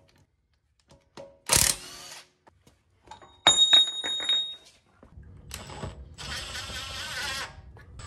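Makita half-inch cordless impact wrench working wheel lug bolts: a short burst about a second and a half in, sharp metal clanks that ring a little past the middle, then a couple of seconds of steady rattling wrench noise near the end.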